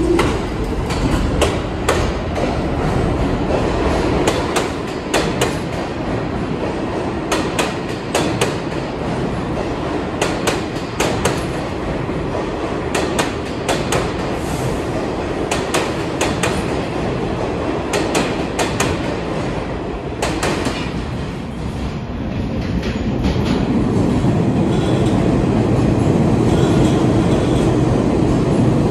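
New York City subway train running through a station, its wheels clicking over rail joints in a quick, uneven rhythm. Over the last few seconds a steadier, louder rumble builds.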